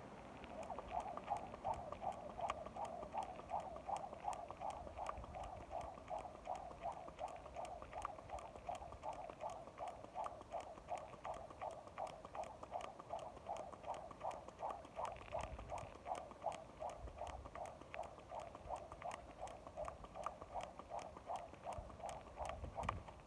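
Jump rope turning and slapping the pavement in a steady rhythm, about three slaps a second. It starts about a second in and stops just before the end.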